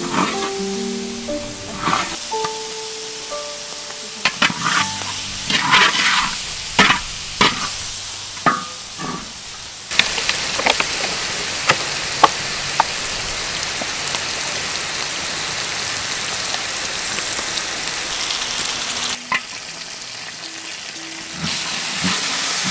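Beef with lemongrass and red chili sauce cooking in a large metal wok, stirred with a spatula: a few knocks and scrapes on the wok, then a steady sizzle that starts suddenly about ten seconds in and dips briefly near the end. Background music plays at the start.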